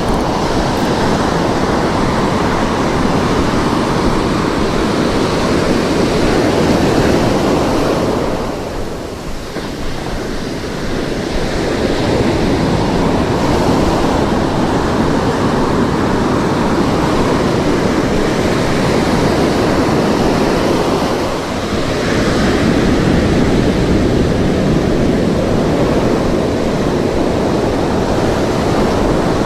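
Ocean surf washing onto a beach, a steady loud rush that eases off briefly twice, with wind buffeting the microphone.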